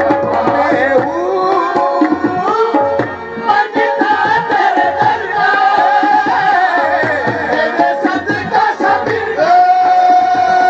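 A man singing a devotional song through a microphone and PA, with tabla drumming in a steady rhythm and sustained held notes behind the voice.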